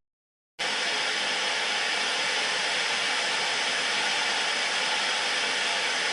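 Steady hissing, rushing noise with no clear pitch, starting abruptly after a brief silence and holding at an even level.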